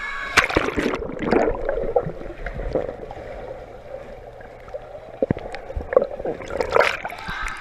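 Water splashing and gurgling in irregular bursts, loudest about half a second in and again near the end.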